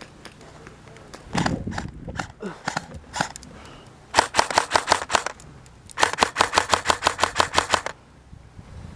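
Airsoft gun firing two rapid full-auto bursts of sharp clicking shots, about ten a second: a short burst about four seconds in and a longer one of about two seconds just after. Scattered clicks and rustling come before them.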